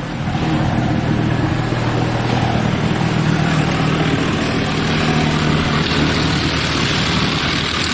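Motor vehicle running: a steady engine hum with an even rushing noise over it.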